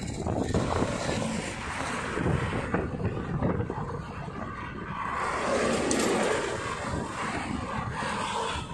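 Road traffic passing: cars and motorbikes driving by on the road, with wind on the microphone. One vehicle passing swells loudest a little past the middle.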